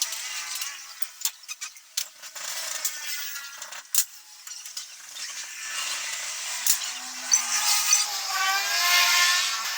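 Hand and tool work on an electric motor being rewound: rasping, scraping noise broken by sharp clicks and knocks, with a wavering whine growing stronger near the end.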